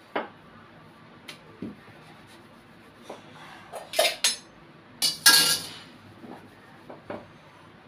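Scattered clinks and knocks of kitchen utensils while puris are rolled out: a wooden rolling pin tapping the counter and dough being set on a steel plate. The knocks are loudest about four and five seconds in.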